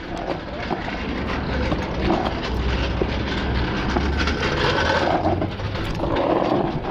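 A motor vehicle running: a steady low engine rumble with broad road or wind noise.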